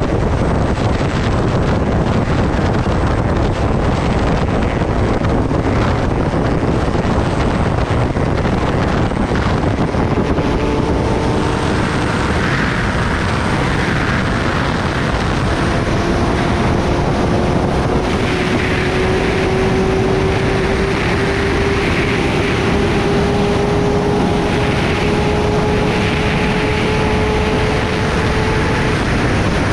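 Kawasaki Ninja ZX-10R riding at highway speed, heard from the rider's seat: a steady rush of wind on the microphone, with the inline-four engine's hum coming through from about ten seconds in and slowly rising in pitch as the bike gains speed.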